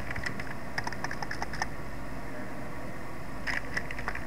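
Computer keyboard typing: two short runs of key clicks with a pause of about two seconds between them.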